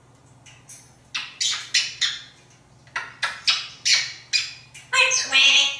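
African grey parrot mimicking kisses: a quick run of about a dozen sharp smacking kiss sounds, followed near the end by a louder, drawn-out voiced call.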